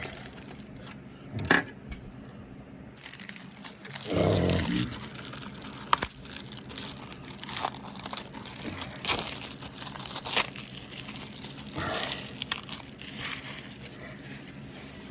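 Plastic shrink-wrap being peeled and crumpled off a DVD case: irregular crinkling and tearing crackles.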